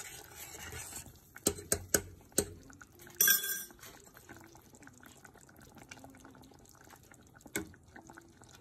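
A spoon clinking against the cooking pot four times in quick succession about one and a half to two and a half seconds in, then a short louder scrape about three seconds in. Beneath it, a thick okra and sweet pea stew bubbles gently at a simmer, with one more clink near the end.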